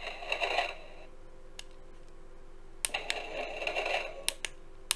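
Robby the Robot toy figure playing electronic voice and robot sounds through its small built-in speaker, in two stretches, the second about three seconds in, with a few sharp clicks.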